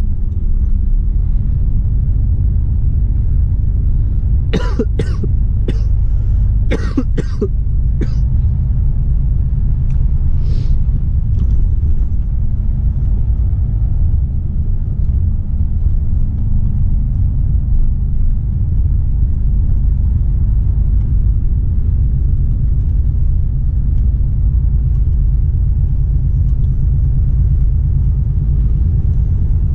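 Steady low rumble of a Volvo FH 460 truck's engine and road noise inside the cab while driving, with a man coughing a fit of several coughs about four to eight seconds in.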